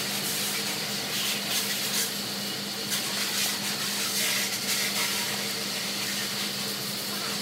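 Steady background hiss with a low hum, broken by a few light clicks and taps of a hand tool on the motorcycle crankcase screws as they are tightened in a cross pattern.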